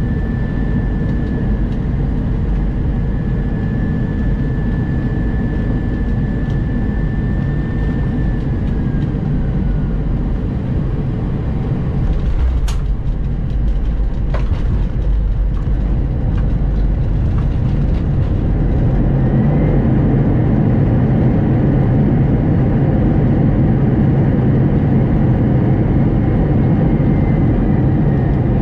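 Airbus A320 cabin noise through a landing: a steady engine and airflow rumble with a whine that drops as thrust comes back. About halfway through, a sharp thump of the main wheels touching down is followed by a second knock. Near two-thirds of the way, the rumble grows louder as the engines spool up again, typical of reverse thrust on the landing roll.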